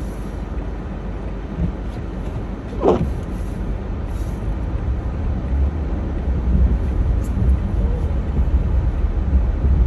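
Steady low rumble inside a car driving through a blizzard, growing a little louder about six seconds in, with a short falling squeak about three seconds in.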